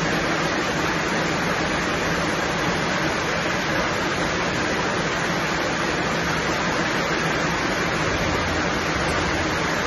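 Steady, unbroken rushing of floodwater.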